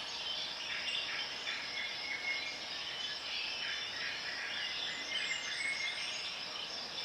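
Steady chirping of insects, crickets by the sound of the tags, as background ambience.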